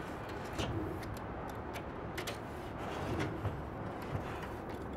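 A knife blade lightly scoring the aluminium Solatube tube as it is turned, a quiet scrape with a few faint clicks over steady background hum.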